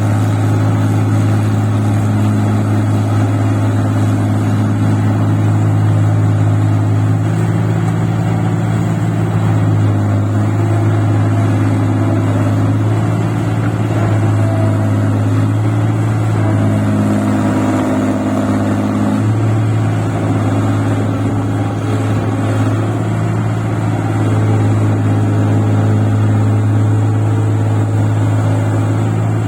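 Engine of a rice-field machine running steadily while working in deep paddy mud, a continuous low hum with small shifts in pitch midway.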